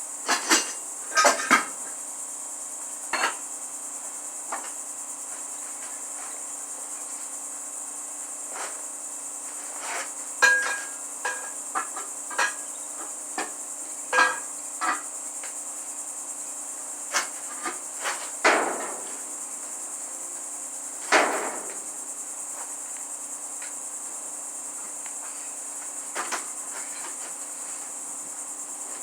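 A steady chorus of crickets, with scattered sharp metal clanks and knocks from hand tools and two longer scraping sounds about two-thirds of the way through.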